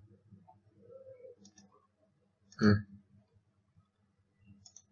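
Computer mouse clicks, with one sharp, loud click about two and a half seconds in as a dialog's OK is pressed, over a faint steady low hum.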